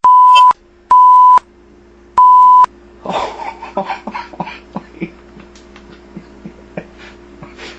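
Microwave oven beeping: three loud beeps of one high tone, each about half a second long, in the first three seconds, the last two spaced farther apart. After them comes a quieter stretch with a steady low hum and scattered light clicks and rustles.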